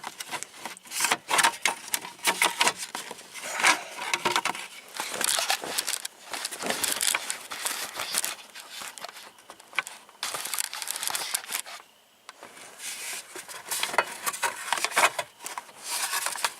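Irregular clicks, rattles and rustling of steering-column parts being worked into place by hand while fitting them on at an angle.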